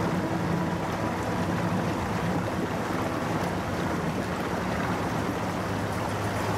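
4x4 game-drive vehicle fording shallow water: a steady rush and splash of water churned up along its side and wheels, over the low, steady hum of its engine.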